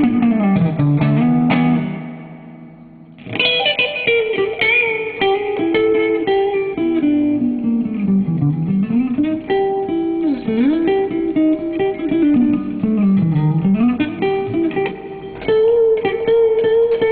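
Electric guitar through a Marshall amp on a clean setting, played chicken-picking style: quick runs of plucked, snapped notes with bends. The playing dies away for about a second a couple of seconds in, then starts again.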